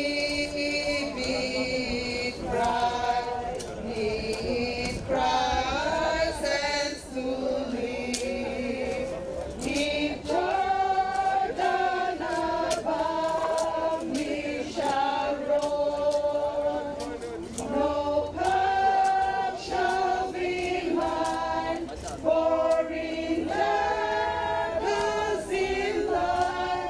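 A group of men and women singing a slow hymn together, the notes held and moving in steps.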